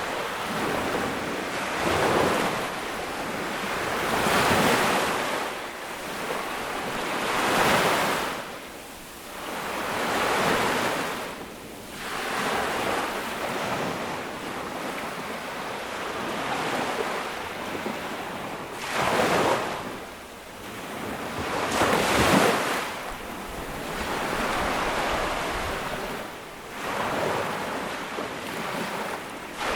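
Ocean waves breaking and washing up on a beach, one surge every few seconds, each swelling and falling away, with the strongest breaks a little after halfway through.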